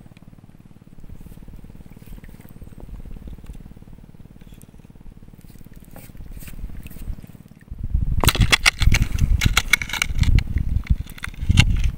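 Shallow seawater stirred faintly at first, then from about eight seconds in a loud, irregular splashing and churning as a hand spear is thrust at a moray eel.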